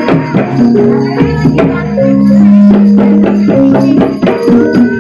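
Live accompaniment music for a kuda lumping trance dance: held melody notes over a run of sharp percussion strokes.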